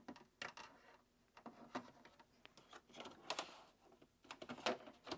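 Plastic front grille of an air purifier being handled and fitted, giving a run of irregular light clicks and knocks as its bottom clips are lined up with the holes in the unit, a couple of them louder about three and four and a half seconds in.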